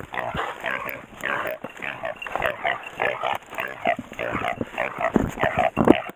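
Wild boar squealing and grunting over and over while a hunting dog holds it, with a few heavy bumps near the end.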